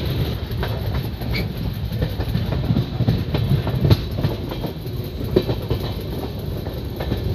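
Train running on the rails, heard from on board: a steady low rumble with irregular clicks and knocks of the wheels over the track.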